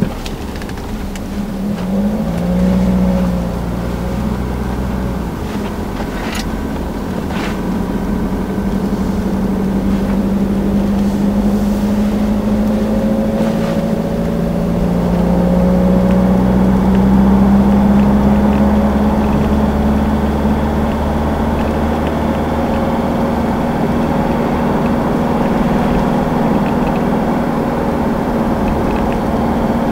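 Car engine and road noise heard from inside the cabin of a Jaguar XF on the move. The engine note climbs gradually, with drops in pitch about two seconds and about fourteen seconds in. Two brief clicks come around six and seven seconds in.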